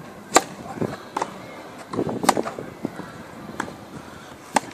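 Tennis ball struck by rackets in a rally: a loud serve about a third of a second in, then sharp pops back and forth roughly every second, with voices murmuring in the background.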